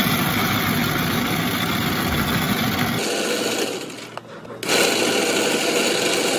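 Bingsu snow-ice machine running, shaving fine ice into a plastic cup. It runs in two stretches, with a short dip about three seconds in as the next cup is filled.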